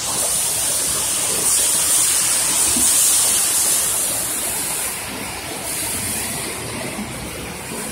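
Crayfish processing line running: steady machine rumble from the conveyor line under a loud, high hiss. The hiss eases off about five seconds in.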